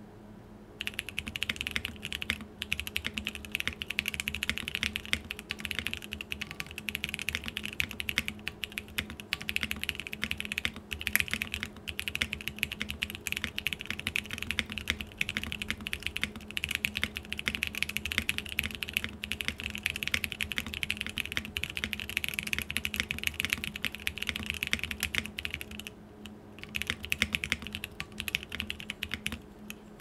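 Continuous fast typing on a TGR x Monokei Tomo mechanical keyboard with lubed SP-STAR Meteor Purple switches, a polycarbonate plate and doubleshot ABS keycaps: a dense run of keystroke clacks. It starts about a second in and breaks off briefly near the end before resuming.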